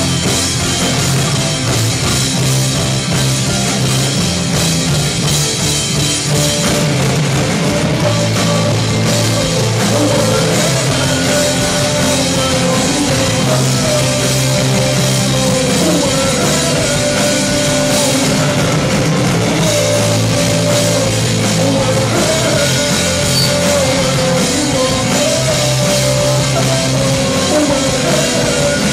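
Live rock band playing loud on stage: electric guitar, bass and drum kit. A wavering melody line rides above the band from about seven seconds in.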